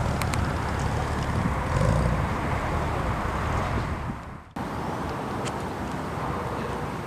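Steady low rumble of a car engine running, over outdoor background noise. The sound fades and then cuts back in abruptly about four and a half seconds in.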